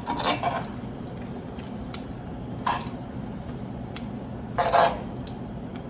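A serving utensil scraping in a skillet and against a plate as chicken cutlets are lifted out and plated: three short scrapes about two seconds apart, the last the loudest.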